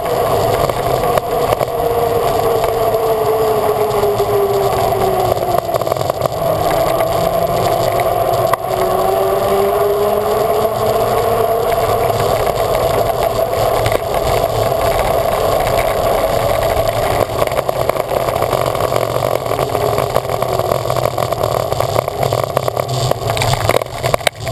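Steady wind and road noise on a camera riding a moving vehicle along a street, with a tone that slowly rises and falls with speed.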